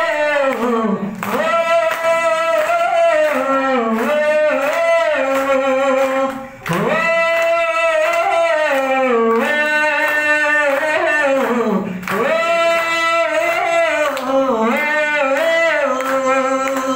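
A man singing a slow song unaccompanied into a microphone, in long phrases with held, gliding notes and short breaths between them.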